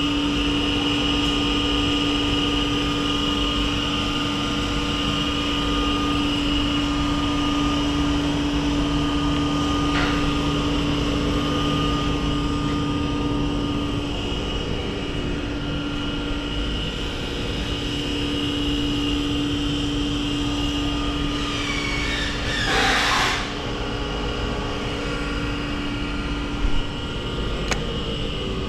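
Chevalier FSG-618 manual surface grinder running with a steady hum and a high steady whine. About 23 seconds in there is one brief, louder noisy burst.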